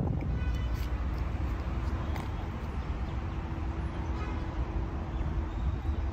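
Nissan GT-R's twin-turbo V6 idling steadily with a low exhaust rumble, through catless downpipes, a resonated HKS midpipe and an HKS Legamax cat-back exhaust.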